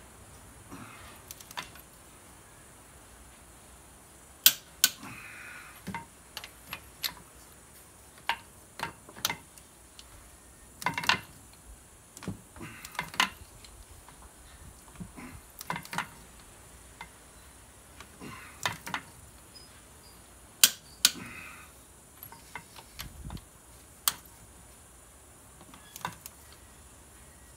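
Torque wrench and socket tightening the DT466E's cylinder head bolts to 110 ft-lb: short stretches of ratchet ticking and scattered sharp metallic clicks, a few of them much louder, the sort a click-type wrench gives as it reaches its set torque.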